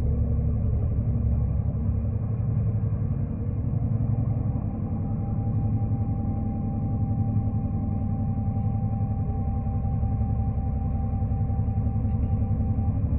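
Inside the cabin of a 2005 New Flyer D40LF diesel city bus: steady engine and road rumble. A faint steady whine comes in about five seconds in and stops just before the end.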